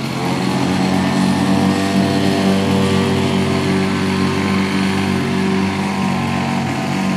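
Model floatplane's engine running steadily at high throttle as the plane takes off from the water and climbs away; it swells a little in the first second, then holds an even pitch.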